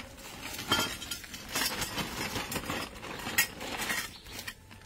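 Metal cleaver and axe blades clinking and scraping against one another and the concrete as they are pulled out of a woven plastic sack, a few sharp clinks about a second apart.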